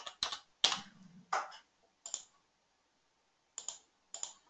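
Computer keyboard keys and mouse buttons clicking as values are entered into a software dialog: a quick cluster of sharp clicks, a pause of about two seconds, then a few more clicks near the end.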